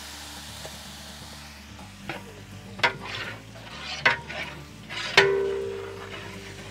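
Marinated chicken sizzling as it lands in hot oil in a large aluminium cooking pot, then a long-handled ladle stirring it and knocking against the pot four times. The loudest knock, about five seconds in, leaves the pot ringing briefly.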